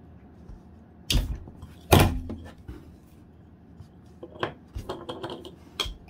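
Handling noise from a small plastic handheld vacuum and its nozzle attachment, with the vacuum not running. There are two loud knocks about one and two seconds in, then a quick run of lighter plastic clicks and taps near the end.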